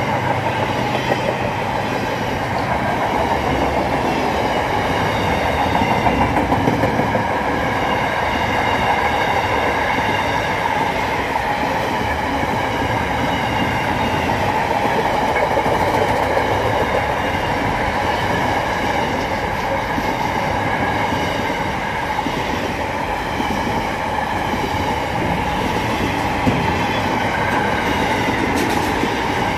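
Freight train of container wagons passing close at speed: a steady, loud rumble and clickety-clack of steel wheels on the rails that carries on unbroken.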